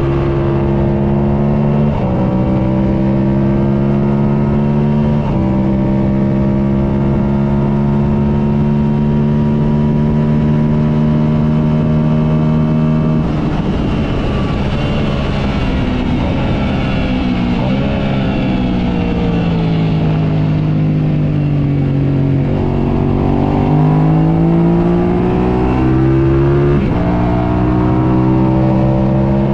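Onboard sound of a track motorcycle's engine at speed, held at fairly steady revs for the first half. About halfway through the revs fall in steps as it brakes and downshifts into a corner, then climb again through upshifts as it accelerates out, over constant wind rush.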